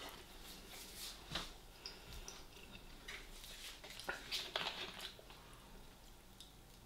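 Close-up chewing and wet mouth sounds of someone eating: a scatter of short clicks and squelches that die down about five seconds in.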